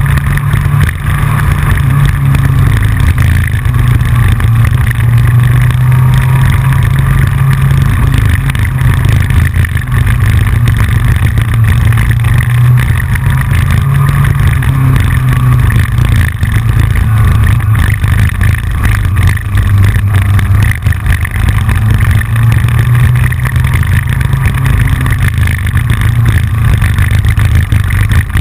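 Yamaha FJR inline-four sport-touring motorcycle at riding speed, its low engine note shifting slightly with the throttle under heavy wind rumble on the fairing-mounted camera. A constant clicking runs through it from the camera's loose mount rattling on the front fairing.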